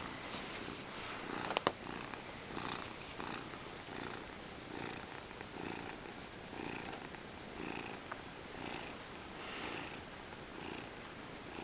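Gray Manx cat purring close up, the purr swelling and fading in a steady rhythm with each breath. A small click sounds once, about a second and a half in.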